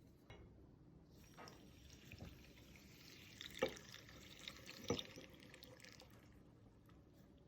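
Faint liquid running for about five seconds, with two sharp knocks partway through.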